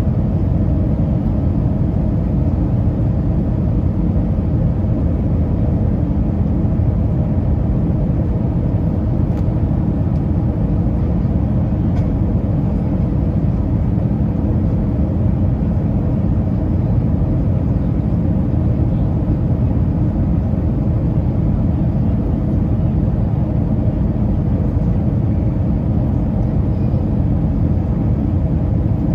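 Steady low rumble inside the cabin of an Airbus A320, the drone of the jet's engines and airflow, unchanging throughout.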